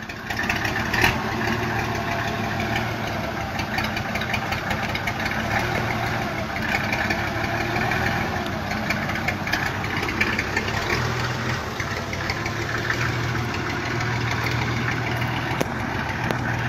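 Old FNM dump truck's diesel engine running steadily at low revs while the truck creeps along.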